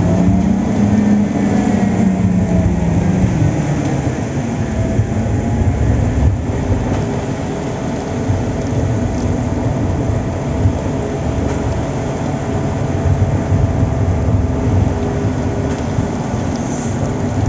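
Heavy diesel construction machinery running loudly and continuously on a piling site. Its engine pitch wavers over the first few seconds, then settles into a steady drone.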